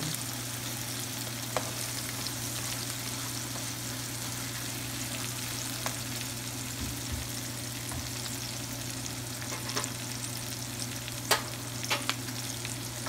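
Onion, garlic, tomato and serrano pepper sizzling in olive oil in a pan, over a steady low hum. A few short sharp clicks, the loudest near the end.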